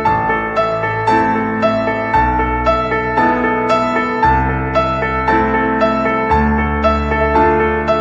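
Gentle piano background music, a steady run of notes over a bass that changes about every two seconds.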